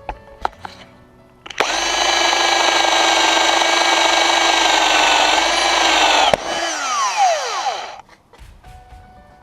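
Hamilton Ultimate cordless drill motor running at full speed as a loud steady whine for about five seconds, sagging slightly near the end, then the trigger released and the motor winding down with a falling whine.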